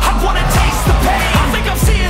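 Background pop-rock music with a steady, driving drum beat.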